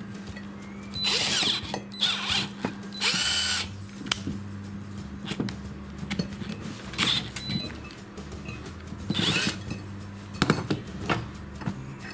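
Cordless drill-driver run in several short bursts to twist steel tie wire, three bursts close together in the first few seconds and two more later.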